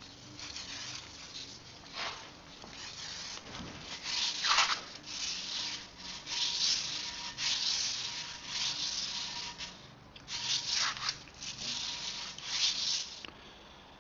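Gas Gas TXT 125 clutch plates being rubbed back and forth on 180-grit wet-and-dry paper, wetted with WD-40, on a surface plate, in a run of scraping strokes about one a second with a short pause about ten seconds in. The plates are being lapped down to bring an over-thick clutch pack back within spec.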